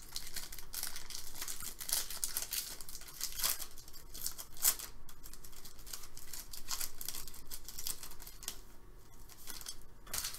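Foil wrapper of an Upper Deck SP Authentic hockey card pack crinkling and tearing as it is opened by hand, a busy high crackle with sharp rips, easing off near the end.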